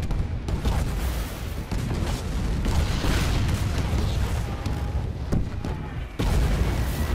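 Air-raid bombs exploding across an airfield, blast after blast in quick succession over a heavy rumble. The noise eases briefly near the end, then a fresh loud blast hits.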